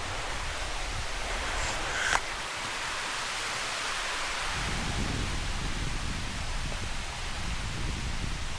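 Waterfall rushing: a steady hiss of falling water, with a deeper rumble joining about halfway through. There is a single short knock about two seconds in.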